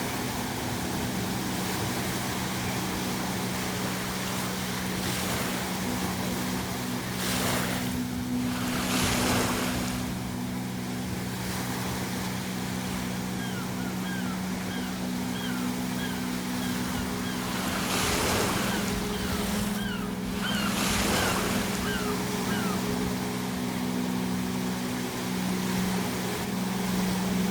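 Ocean waves breaking steadily on a shore, with two larger waves crashing about a third and two-thirds of the way through. Seagulls give a run of short repeated cries in the middle. A steady low drone from the background ambience is held underneath.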